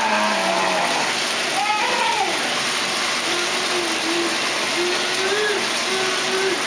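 Bath tap running steadily into a filled tub. Over it, a toddler babbles and hums softly, most from about three seconds in.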